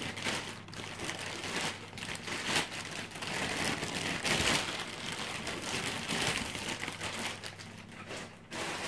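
Packing material crinkling and rustling as it is handled and pulled apart by hand, an irregular crackle throughout.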